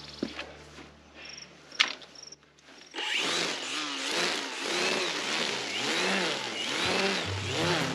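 Milwaukee cordless battery string trimmer starting suddenly about three seconds in, after a sharp click, and cutting grass, its pitch rising and falling over and over as it sweeps through the grass. Low steady music tones come in near the end.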